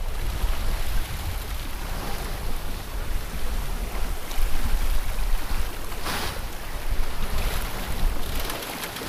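Water rushing and splashing along the hull of a 36-foot Cape Dory sailboat under sail, with wind buffeting the microphone as a low rumble. A few louder splashes come through, the biggest about six seconds in.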